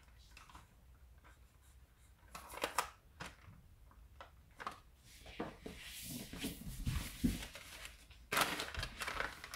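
Marker pen writing on glossy gift wrapping paper, in short scratchy strokes, with the paper crinkling as the wrapped box is handled, loudest near the end.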